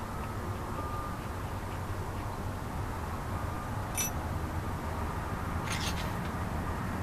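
Steady low background rumble with a sharp click about four seconds in and a brief clatter of small knocks near six seconds: a hand handling parts on the metal bed of an idle wood lathe.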